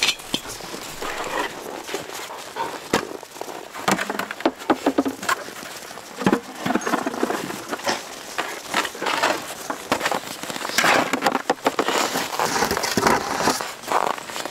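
A pack of Siberian huskies whining and yelping excitedly at feeding time, mixed with scattered knocks and clatter.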